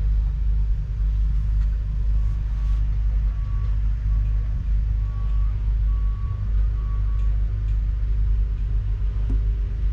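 Steady low rumble, with a faint high beep repeating about seven times at uneven spacing through the middle.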